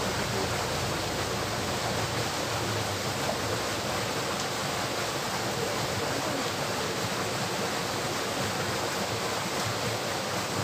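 Steady rush of flowing water in a small stream channel.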